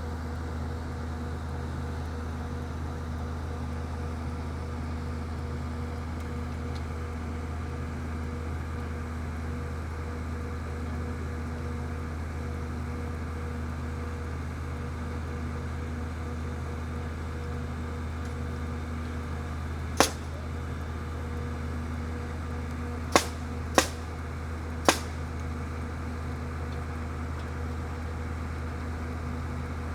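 A skid steer's diesel engine idling steadily, with four sharp, loud cracks from impacts on the truss framing: one about two-thirds of the way through, then three more close together a few seconds later.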